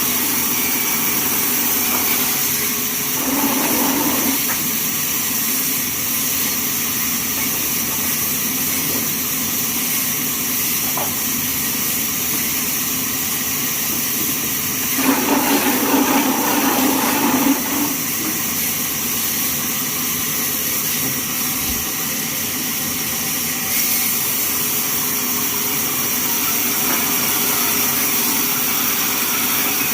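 Band sawmill running steadily with a constant high hiss, growing louder briefly about 3 seconds in and again for a few seconds about halfway through.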